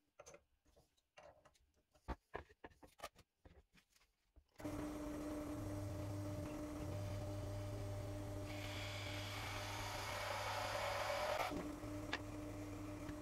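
A few light clicks and knocks of hands at the drill press chuck, then the benchtop drill press motor starts about a third of the way in and runs steadily with a low hum. The twist bit then cuts into a wooden board, a rough rasping cutting noise over the motor for about three seconds, followed by a sharp click as it is raised.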